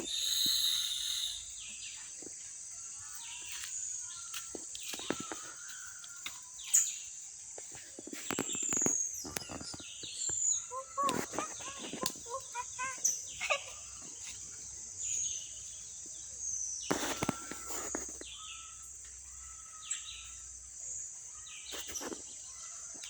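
Tropical forest ambience: a steady high-pitched insect drone under many short bird chirps and whistles, with scattered sharp clicks and rustles.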